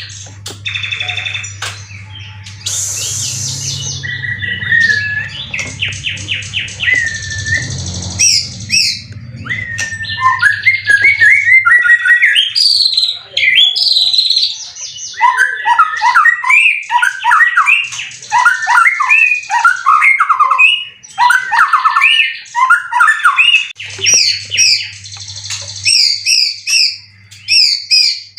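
White-rumped shama (murai batu) singing a long, varied song of clear whistles, trills and fast rising and falling phrases, getting louder and denser after about ten seconds. A low steady hum runs underneath in the first part and again near the end.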